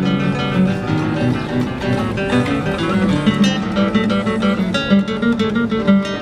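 Two nylon-string classical guitars playing a prelude as a duet, fingerpicked, in a steady stream of quick plucked notes.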